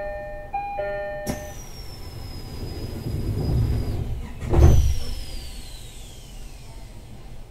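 Door chime on an SR1 series electric train, its two-tone pattern ending about a second and a half in, then the passenger sliding doors moving with a rising rush and a heavy thud about four and a half seconds in. A high tone falls away after the thud.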